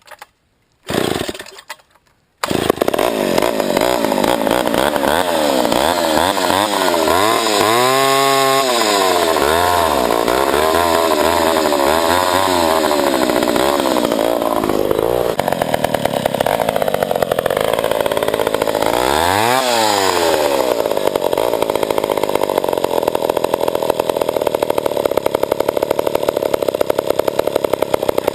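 1966 Pioneer two-stroke chainsaw, about 65 cc, pull-started on a worn recoil starter and catching about two seconds in. It then runs loudly with its speed swinging up and down and a rise and fall in revs near the twentieth second, before settling into steady running.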